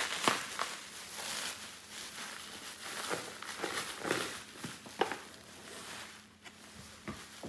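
Plastic packing wrap rustling and crinkling in irregular bursts as it is pulled off an engine block in a cardboard box, with a few light knocks from handling.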